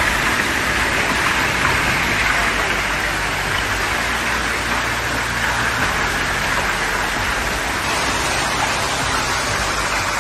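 Heavy hailstorm: a dense, steady hiss of hailstones pelting down on the ground, roof and balcony.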